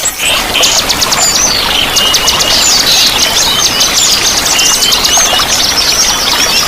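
A dense chorus of many small songbirds chirping and trilling rapidly over one another, over a steady rush of flowing water.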